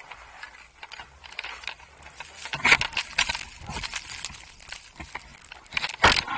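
Handling noise right at a handheld camera: a skier's gloves, jacket and gear rustling, knocking and clicking in irregular scuffs. It is loudest about two and a half seconds in and again near the end.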